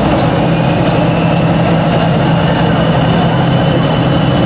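Tatra 815 8x8 trial truck's diesel engine running steadily and loud under load as the truck works through deep mud.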